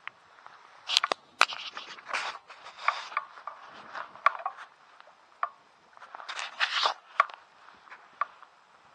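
Small wind-driven waves lapping and slapping against a stone lake shoreline: irregular short splashes and clicks, a few of them louder around one and seven seconds in.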